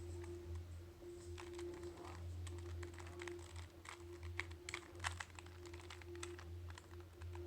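Rubik's Cube layers being turned quickly by hand: an irregular run of small plastic clicks, over a low steady hum.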